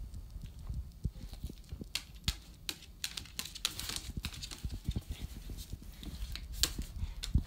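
Irregular plastic clicks and knocks of a hollow plastic wobble treat toy, with a few sharper knocks, as a cocker spaniel noses it and it tips and rolls across a tile floor. The dog's claws tap on the tiles.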